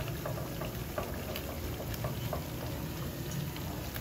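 Akara bean fritters deep-frying in hot oil: a steady bubbling sizzle with scattered small crackles and pops.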